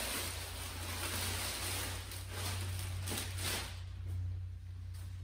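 Rustling and scraping of packaging being handled while a boxed golf trolley is unpacked, over a steady low hum.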